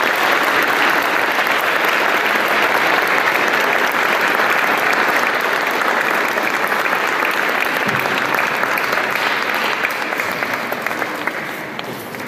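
Audience applauding steadily after a performance, the clapping thinning out over the last couple of seconds.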